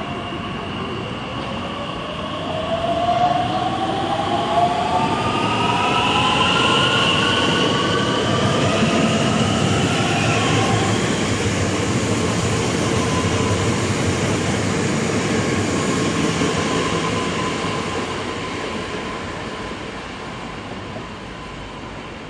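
Bombardier Talent 2 (class 1442) electric multiple unit pulling away and passing: its electric drive whines, rising in pitch over the first several seconds as it gathers speed. The wheels rumble on the rails as it goes by, and the sound fades as it draws away near the end.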